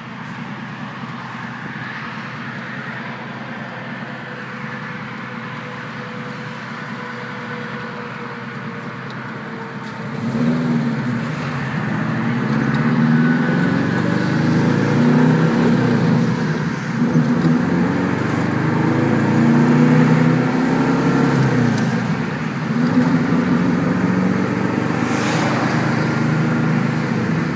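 1973 Saab 96's V4 engine heard from inside the cabin while driving, running quietly at first, then louder and under load from about ten seconds in as the car picks up speed.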